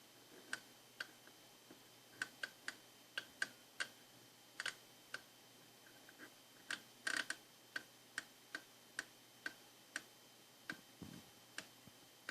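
Intake manifold runner control (IMRC) valve being worked during a test after repair: a string of sharp, irregular clicks, roughly two a second, with a quick burst of several clicks about seven seconds in.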